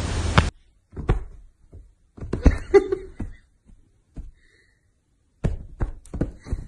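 A steady rushing noise cuts off half a second in. Scattered soft knocks and thuds follow, then near the end a quick run of soft thumps as a kitten bounds and pounces across a mattress.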